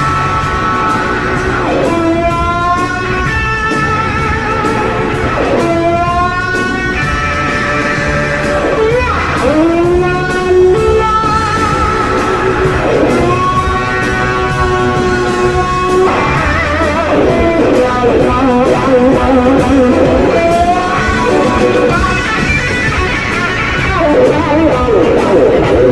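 Electric blues guitar played with a band behind it, full of bent notes that slide up and down in pitch and wavering vibrato on held notes.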